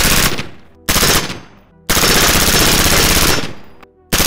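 PSA Freedom AR-15 fired in rapid strings of shots: a string ending just after the start, a short burst about a second in, a longer string of about a second and a half from about two seconds in, and another starting near the end. The shooters judge the rifle to be running under-gassed, with worn gas rings not helping.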